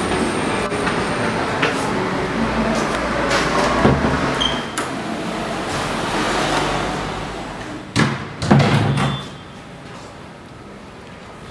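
Wooden door being opened and shut, with two sharp knocks about eight seconds in, over a steady rushing background noise that drops away after them.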